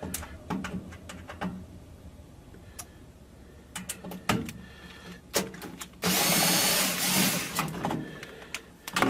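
Small drill driver running for about a second and a half about six seconds in, backing out a panel set screw. Before it come scattered light clicks and taps of the tool against the panel.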